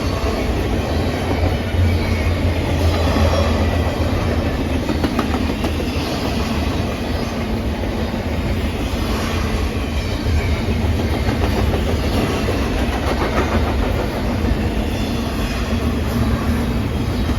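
A train rolling past with a steady low rumble and wheel noise on the rails. No horn sounds.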